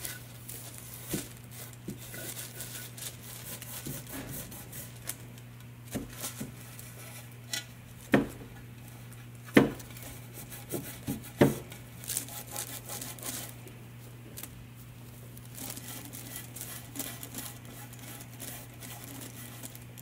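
Cloth rag rubbing over a painted ceramic bisque piece, wiping back wet paint, with soft scuffing throughout. Three sharp knocks in the middle as the ceramic piece is handled and turned on the table, over a steady low hum.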